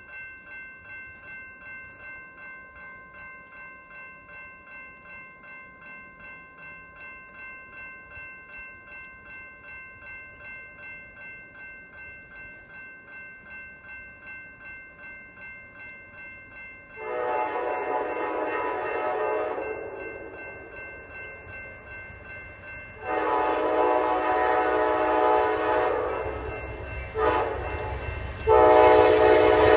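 Horn of an Amtrak train led by two P42 diesel locomotives sounding the grade-crossing pattern of two long blasts, a short one, and a long one that starts near the end. For the first half or more, before the horn, a ringing pulses about twice a second.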